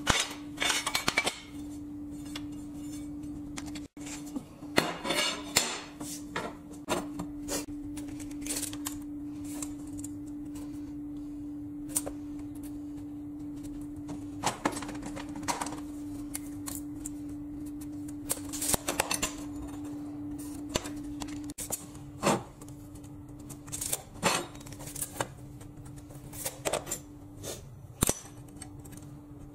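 Steel bar stock and hand tools clinking, knocking and scraping on a steel workbench as the metal is handled, measured and marked, with a steady hum from workshop equipment underneath.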